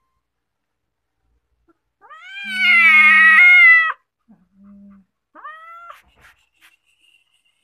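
A cat meowing: one long, loud meow about two seconds in, then a shorter meow a second or so later, followed by a few faint clicks.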